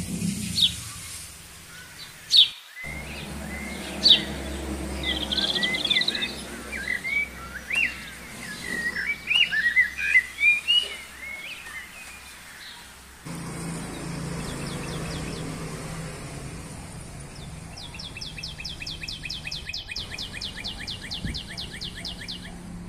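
Small birds chirping and singing: a few sharp single chirps, then a run of quick warbling notes. Near the end comes a rapid, evenly spaced trill lasting a few seconds.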